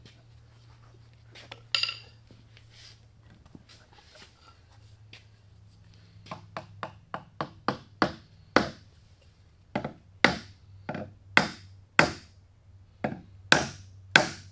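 Wooden key wedge being driven into a trestle table's through tenon by repeated strikes. A few scattered knocks, then from about six seconds in a run of light quick taps that grow into harder blows roughly every half second.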